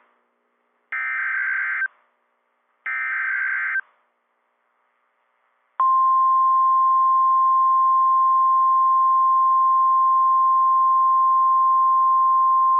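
NOAA Weather Radio Emergency Alert System signal: the last two of the three digital SAME header bursts, each a harsh data screech about a second long, a second apart. About two seconds later the steady single-pitch 1050 Hz weather radio alert tone starts abruptly and holds, announcing a Tornado Watch alert.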